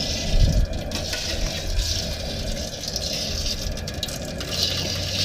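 Whole turkey being lowered into hot oil in a 30-quart propane turkey fryer pot: the oil sizzles and bubbles steadily over the low roar of the propane burner, with a louder surge about half a second in.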